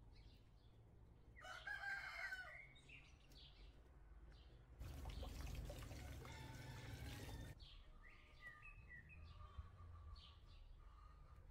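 A rooster crows once, about a second and a half in. Then tap water runs onto a metal tray for about three seconds, and small birds chirp faintly near the end.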